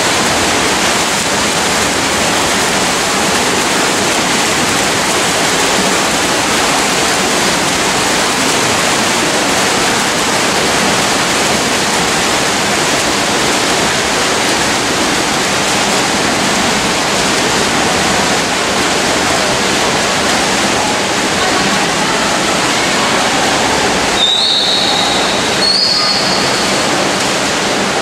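Steady loud wash of splashing from several swimmers racing front crawl in an indoor pool. Two short high tones come near the end, about a second and a half apart.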